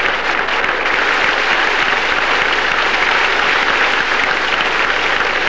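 Audience applauding steadily, a dense even clapping with no break.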